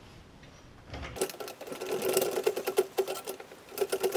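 A gray water tank on its metal strut frame being jacked up with a hydraulic floor jack. It makes a rapid mechanical chattering, a fast run of clicks with a squeaky tone through it. It starts about a second in and breaks off briefly near the end.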